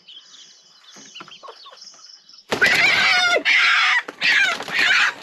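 A chicken squawking loudly in a run of harsh, falling calls that start about halfway in. These are the distress squawks of a chicken that has just been caught.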